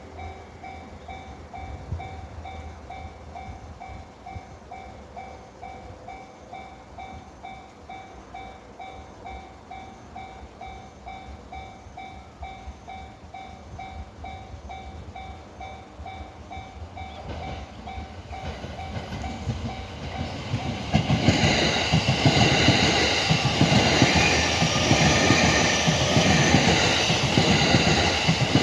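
Japanese level-crossing warning bell ringing in a steady repeating ding while an electric train approaches. About two-thirds of the way in, the train reaches the crossing and passes, its wheels clattering loudly over the rails and drowning out the bell.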